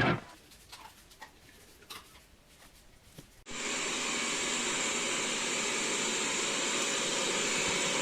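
A few faint taps, then about three and a half seconds in a vacuum cleaner's steady rushing hiss starts abruptly and runs on without change.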